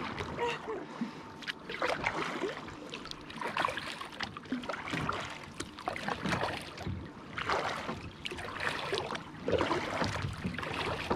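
Kayak paddle strokes in calm lake water: the blade dips in and pulls through with a splash and drip about every second and a half.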